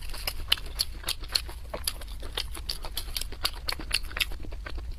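Close-miked chewing of a large sausage: a quick, irregular run of wet smacks and clicks from the mouth, several a second.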